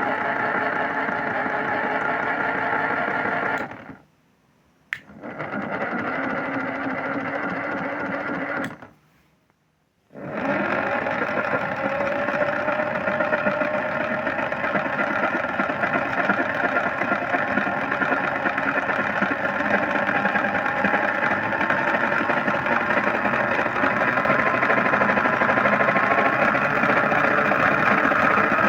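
Washing machine drum motor running with a whine in short runs, stopping twice and restarting once with a click. From about ten seconds in it runs on steadily, its whine climbing slowly in pitch as the drum speeds up toward the spin.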